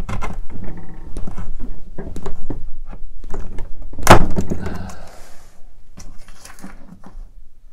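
Bench chisel paring thin layers off a small maple block braced on a workbench: a run of short scraping cuts and knocks of wood and steel on the bench top, the loudest a sharp knock about four seconds in.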